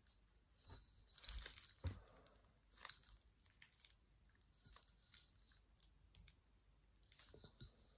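Faint handling sounds: plastic packaging crinkling, loudest about a second in, with a few light sharp clicks as a metal yo-yo is turned in the hands.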